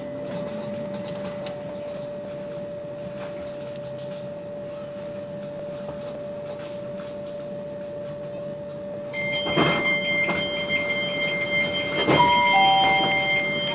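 Class 387 electric train standing at a platform with a steady electrical hum. About nine seconds in, a high door-warning tone starts and the sliding doors close with knocks, followed near the end by a short two-note falling tone.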